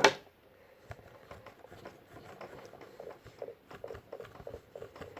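A sharp knock at the start, then faint, scattered small taps and rubbing as objects and modelling dough are handled on a desk.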